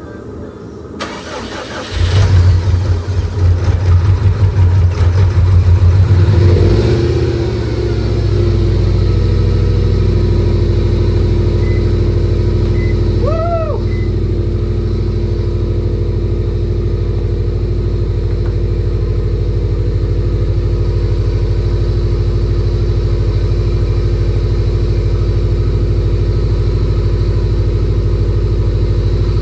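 Freshly rebuilt Subaru EJ257 2.5-litre turbocharged flat-four cranking briefly, then catching about two seconds in. It runs at a high fast idle for several seconds, then settles to a steady idle.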